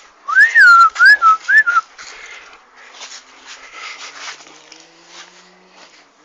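A person whistling three quick notes that each rise and fall, close to the microphone, a call to a dog, followed by fainter scuffling noise.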